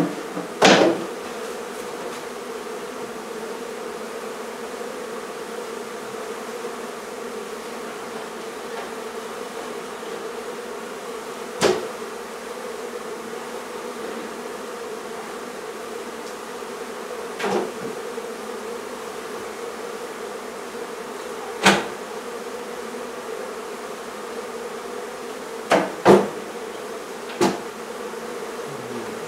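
Mass of honey bees buzzing in a steady, even hum around the opened hive. A few sharp knocks break in, about a second in and then every few seconds later on.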